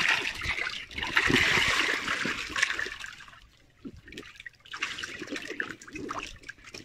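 Water splashing and sloshing in a shallow inflatable paddling pool as a child moves and kicks about in it, in two stretches with a short lull about halfway through.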